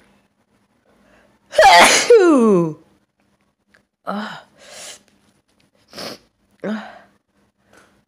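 A person sneezing hard in a sneezing fit: one loud sneeze with a voiced cry that falls in pitch, followed by four shorter, quieter bursts of breath.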